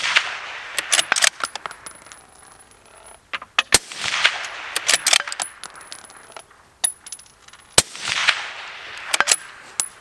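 Howa 20-inch 6.5 Creedmoor bolt-action rifle fitted with a DPT suppressor, fired twice about four seconds apart. Each shot is followed by a run of quick metallic clicks and clacks as the bolt is worked to chamber the next round.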